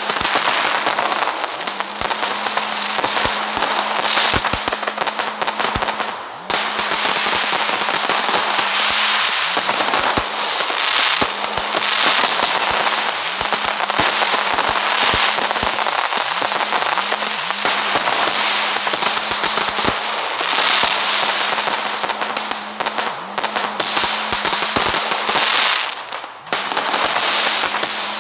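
Fireworks crackling without a break: a dense hiss packed with rapid sharp cracks and pops, dropping away briefly twice.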